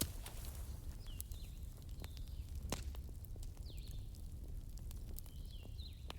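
Campfire crackling, with scattered sharp pops over a steady low rumble. Short high chirps, as from a bird, come several times.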